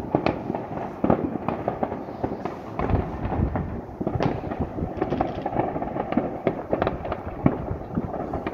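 Many fireworks going off across a town at once: a dense, unbroken crackle of bangs and pops, with a few sharper bangs standing out, one just past halfway and a louder one near the end.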